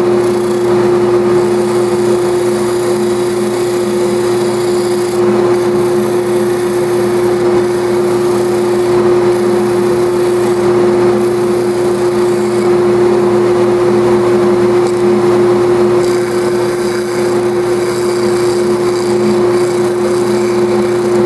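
Combination belt and disc sander running steadily while a balsa wood dragster body is sanded on the disc, mixed with the dust exhaust system running: a constant motor hum under a loud rushing hiss. The higher hiss thins out and returns several times.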